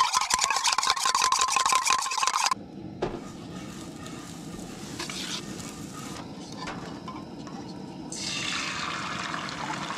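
A utensil whisks eggs fast in a stainless steel cup, making rapid metallic scraping and clinking for about two and a half seconds. A steady low hiss from the camp stove and the buttered cast iron skillet follows. About eight seconds in, a louder sizzle starts as the beaten eggs are poured into the hot pan.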